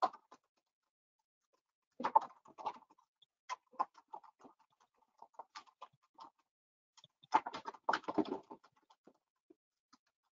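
Computer keyboard typing and mouse clicks: scattered single clicks, with two denser runs of keystrokes about two seconds in and again about seven seconds in.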